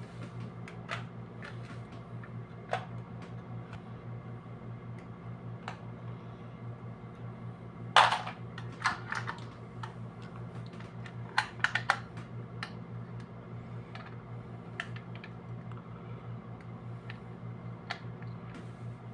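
Scattered plastic clicks and clacks from handling a small handheld sewing machine, with a louder burst of clatter about eight seconds in and another a few seconds later, over a steady low pulsing hum.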